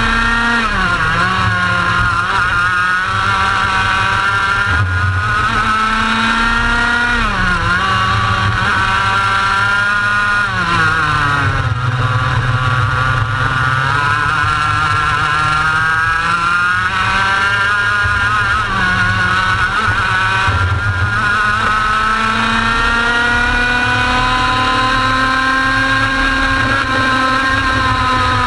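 Racing kart engine at full race pace, heard onboard, climbing steadily in pitch along the straights and dropping sharply about five times as the driver lifts and brakes for corners.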